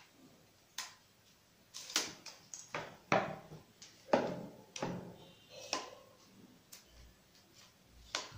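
Telescoping metal tripod legs being collapsed by hand: an irregular string of about a dozen sharp clicks and clacks from the leg-lock clips and the leg sections knocking together.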